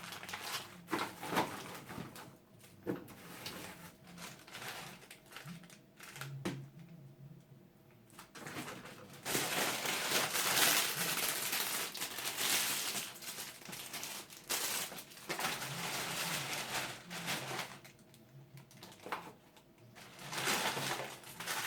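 Food packages and containers being handled: plastic wrapping crinkles and rustles, with scattered light knocks and clicks of items set down on fridge shelves. The longest and loudest stretch of rustling comes just under halfway in.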